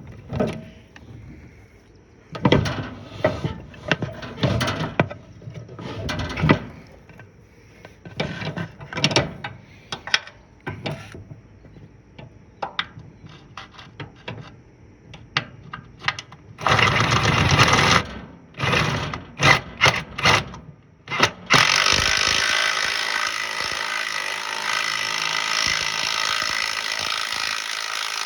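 Hand tools and metal engine parts clanking and knocking in irregular bursts while working on a riding mower's engine mounting. About three quarters of the way through, a steady loud hiss starts and keeps going.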